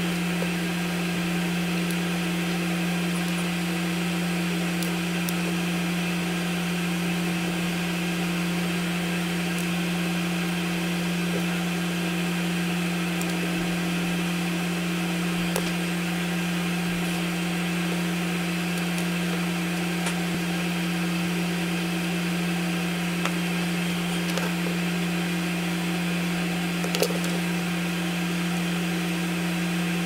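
Steady droning hum of a running machine, unchanging throughout, with a few faint clicks from handling the LED neon strip and its plastic connectors.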